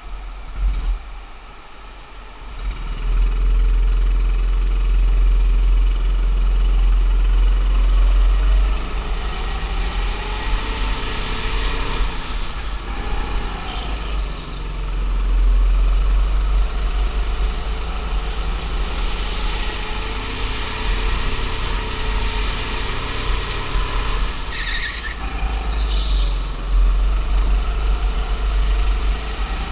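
Go-kart's small petrol engine heard onboard, pulling away about two and a half seconds in and then running hard around the track. Its pitch rises and falls in long sweeps through the corners, over a heavy low rumble.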